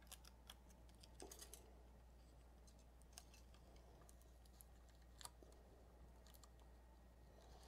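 Near silence: a few faint, scattered clicks and light handling sounds of fingers working tape and a thermistor wire on a 3D printer's heated bed, over a low steady electrical hum.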